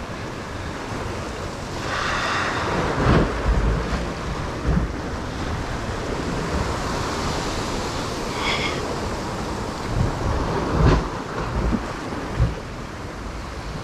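Ocean swell surging and washing against the rock ledge, with wind gusting on the microphone and a few short low thumps.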